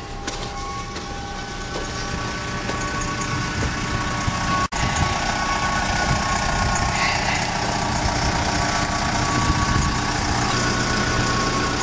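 Diesel engine idling steadily: a constant hum with a steady whine, cutting out for an instant about halfway through and louder after that.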